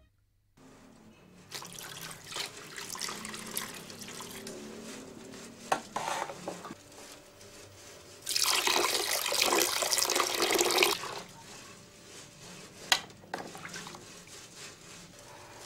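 Water sloshing and splashing in a plastic tub as a plastic dipper scoops it, then a louder stretch of water pouring for about three seconds, with a few sharp knocks.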